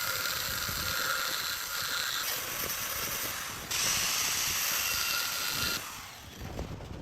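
Angle grinder cutting a steel billet held in a vise: a steady high hiss of the disc biting into the metal, in short spliced stretches that change level abruptly about two, four and six seconds in. The cutting stops about six seconds in, and a few light knocks follow.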